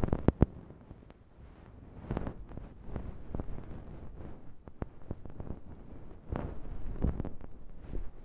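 Bonten, the fluffy down puff on the end of an ear pick, rubbed and swept over the microphones, giving soft, muffled rustling swishes. There are a couple of sharp clicks just after the start and a quieter lull about a second in.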